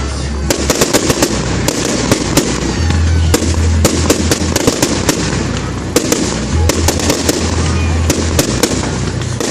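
Fireworks display: a dense, continuous run of sharp bangs and crackling reports, several a second.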